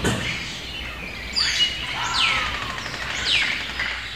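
Birds calling: a series of quick whistled chirps, most of them sliding down in pitch, about one a second over a steady low background hum.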